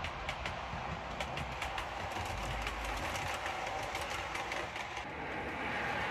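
OO gauge model train running along the track: a steady whir with quick clicks of the wheels over the rail joints, growing louder about five seconds in as it comes close.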